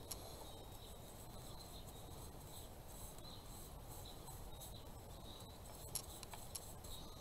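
Faint handling noises of a paintbrush and a small wooden craft piece: a few light clicks and taps, the sharpest near the end, over a low steady background hum.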